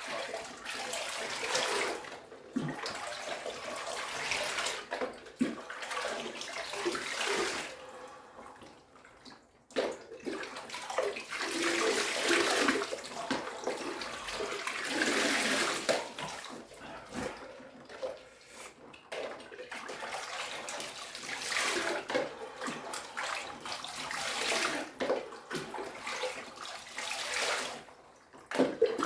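Ice water poured and splashing in a chest freezer cold plunge, in several long pours of a few seconds each with short breaks between them.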